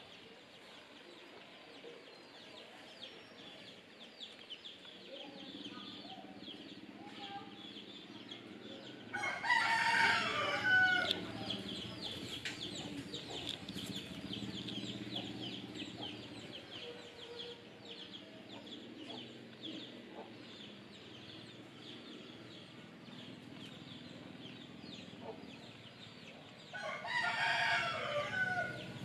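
A rooster crowing twice, each crow about two seconds long, the first about ten seconds in and the second near the end, over a steady high chirring.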